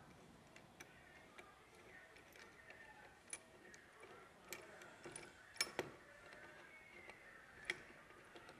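Faint, scattered metal clicks and ticks as transmission gears and shafts are handled and seated in a Bajaj Discover motorcycle engine's crankcase half. The sharpest clicks come as a pair a little past halfway, with one more near the end.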